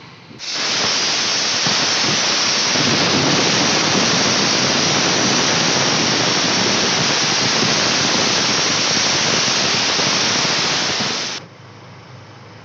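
Heavy rain pouring down as a loud, even hiss that starts suddenly about half a second in and cuts off suddenly near the end.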